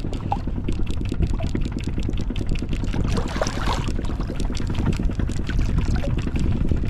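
Boat engine running at a steady idle, with water sloshing; a brief rush of splashing water about three and a half seconds in.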